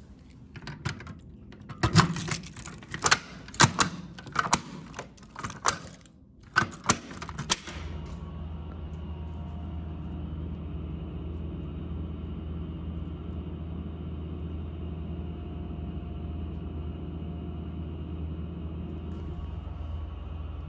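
A run of sharp clicks and knocks for several seconds. About eight seconds in, a steady electrical hum with a hiss cuts in suddenly and holds.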